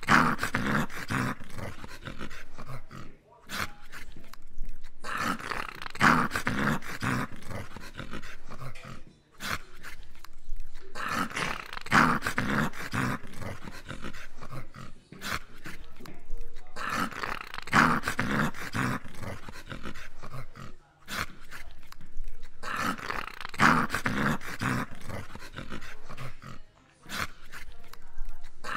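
English cocker spaniel play-growling while mouthing at a slipper, in loud bouts that come back about every six seconds with short lulls between.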